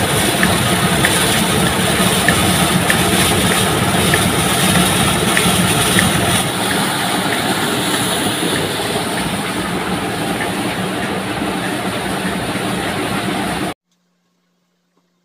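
Rice mill machinery running with a steady mechanical din and a light regular tick, a bit under two a second. It cuts off suddenly near the end.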